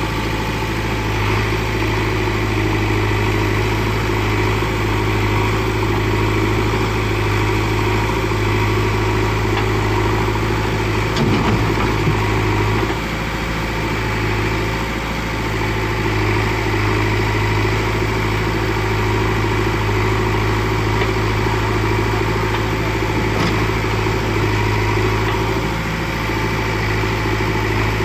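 Diesel engine running steadily at low revs, with a brief wobble in pitch and a small drop in level about eleven to thirteen seconds in.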